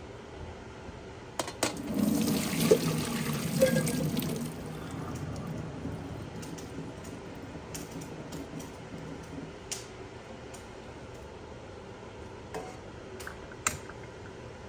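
Pot of blanching water poured through a colander into a stainless steel sink: a splashing rush for about three seconds, then a fading trickle and dripping, with a few light clicks.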